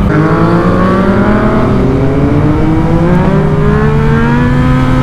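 Yamaha MT-09's inline three-cylinder engine accelerating under way, revs climbing steadily and levelling off near the end.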